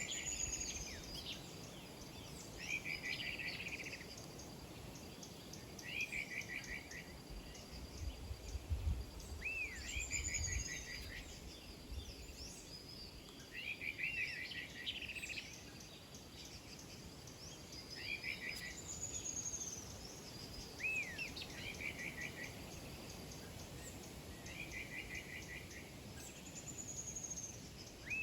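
Birds singing: a short trilled phrase repeated every two to three seconds, with higher descending whistles between, over a faint steady insect-like whine. A low rumble comes about eight to eleven seconds in.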